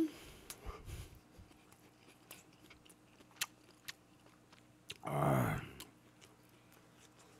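A person chewing a mouthful of food close to the microphone, with faint scattered wet mouth clicks. About five seconds in he lets out a drawn-out, falling "ah" of enjoyment.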